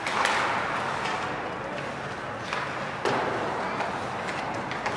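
Hockey play: sharp cracks of sticks and puck, one about a quarter-second in, another at about three seconds and a quick pair near the end, over steady rink noise.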